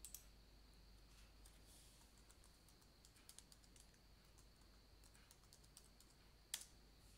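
Faint computer keyboard typing and mouse clicks, scattered light key taps with one sharper click near the end.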